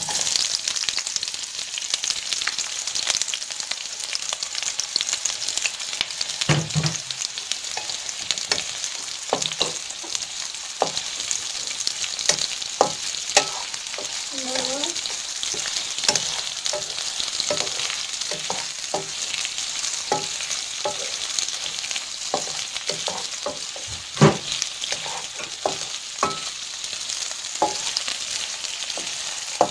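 Sliced onions sizzling in hot oil in a granite-coated frying pan, a steady frying hiss, while a wooden slotted spatula stirs them with many knocks and scrapes against the pan.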